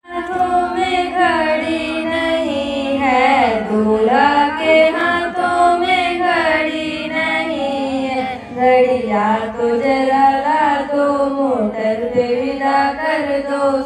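Female singing of a North Indian folk wedding song (a banna geet sung for the groom), over steady sustained notes.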